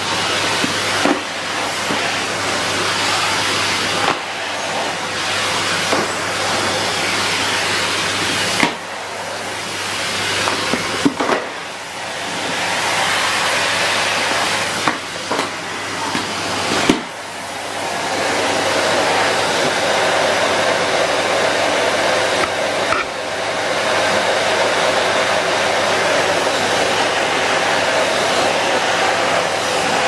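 Numatic Henry cylinder vacuum cleaner running with a steady rushing motor and suction sound. Its pitch and level shift while the nozzle is worked, mostly between about 9 and 17 seconds in, and there are a few short knocks.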